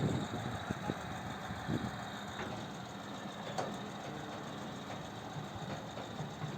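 Heavy diesel engine running steadily, with a few short sharp knocks in the first two seconds and another a little past halfway.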